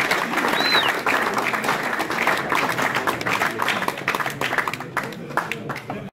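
A roomful of people applauding: dense clapping that thins out and grows quieter over the last few seconds, then cuts off suddenly.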